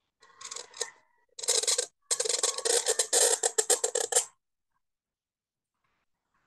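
Cut reed pen (qalam) scratching across paper as it draws a long curved stroke: a short fainter scrape, then two loud raspy drags, the second lasting about two seconds and stopping a little after four seconds in.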